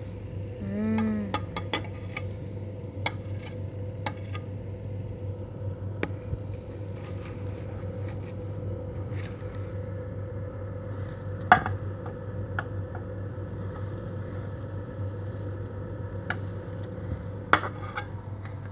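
Spatula tapping and scraping against a frying pan in scattered clicks, with two sharper knocks in the second half, over a steady low hum. A brief hum-like tone sounds about a second in.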